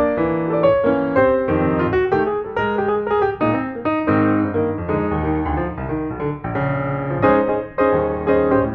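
Background piano music with many quick notes.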